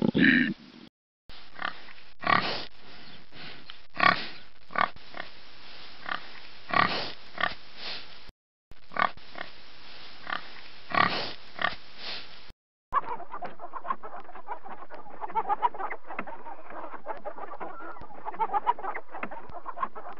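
A string of separate animal sound clips. The end of a roar comes first, then two stretches of short, sharp farm-animal calls with brief silent breaks between them. The last seven seconds or so are a flock of chickens clucking.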